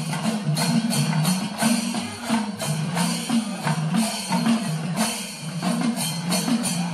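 Festival percussion music: metallic cymbal strikes in a steady rhythm, about three a second, over a low tone that steps up and down in a repeating pattern.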